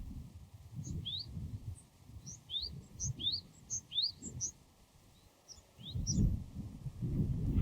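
Japanese tit singing its two-note song, a short rising note paired with a brief higher note, repeated about five times. A low rumble runs underneath and swells near the end.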